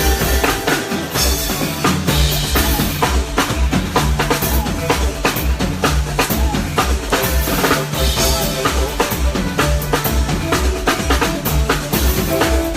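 Live band playing an instrumental groove: a drum kit with a steady bass-drum beat and snare and rimshot hits over a bass line, with no vocals.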